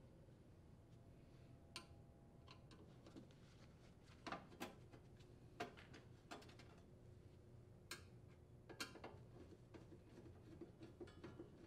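Faint, scattered clicks and ticks of a hand screwdriver turning screws out of a sheet-metal access cover.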